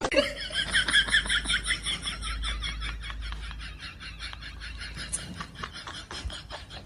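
An animal calling in a rapid, even series of short high chirps, several a second, that gradually grow fainter.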